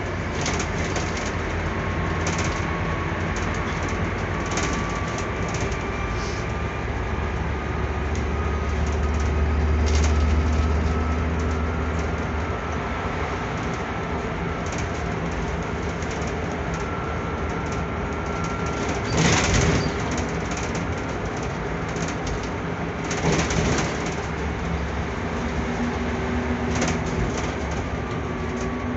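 Scania Citywide CNG city bus heard from inside the cabin while driving: a steady rumble of engine and road noise with faint, slowly wavering whines and light rattles. The low rumble swells for a few seconds a third of the way in, and two short louder bursts of noise come a few seconds apart past the middle.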